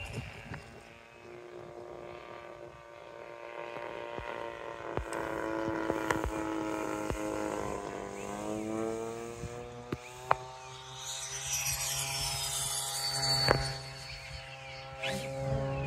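Twin electric ducted fans of a Freewing F-18 RC jet whining in flight. The pitch drops around the middle as the jet passes, then climbs again. A few sharp clicks are heard over it.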